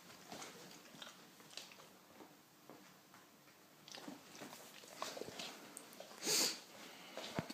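A cat and a Labrador playing: scattered soft scuffles, taps and mouthing sounds from paws and bites, with a brief hiss-like burst about six seconds in.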